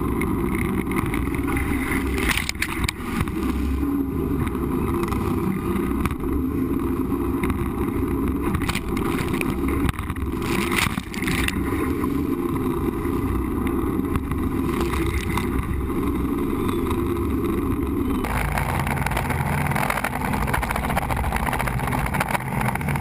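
Jet boat running hard through river rapids: a steady rush of engine and churning water, with waves crashing over the boat a few times, about two seconds in and again around ten to eleven seconds. The sound shifts abruptly about eighteen seconds in.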